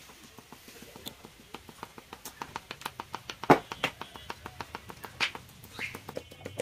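Quick, rhythmic clicking of a wooden stick tapping the lip of a metal bowl of hot sugar syrup, several taps a second, as drops are portioned into a wooden batasha mould. One louder knock comes about three and a half seconds in.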